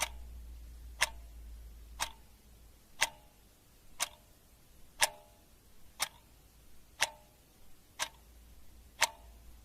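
Clock ticking steadily, one sharp tick each second, each tick with a brief ring after it.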